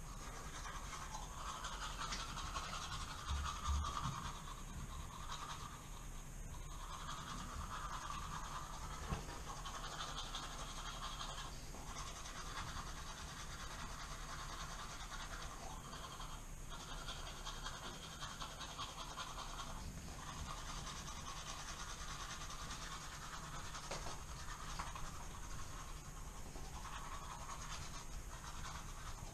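Toothbrush scrubbing teeth: a continuous rapid scratchy brushing with a few short pauses, and a brief low thump about three and a half seconds in.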